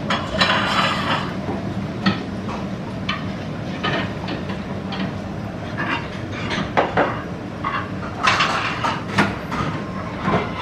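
Restaurant counter sounds: scattered clinks and taps of dishes and utensils, with two short hissy spells near the start and near the end, over a steady low hum.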